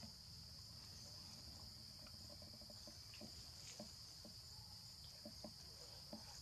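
Steady, faint high-pitched chirring of night insects, with a few soft ticks scattered through it.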